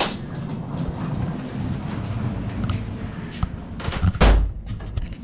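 A door shutting with a heavy thud about four seconds in, after a sharp click at the start, over a steady low hum.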